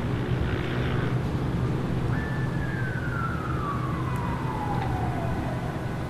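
Distant siren: a single tone starts about two seconds in, holds briefly, then glides steadily down in pitch for about three seconds, as if winding down. Under it runs a steady low city rumble.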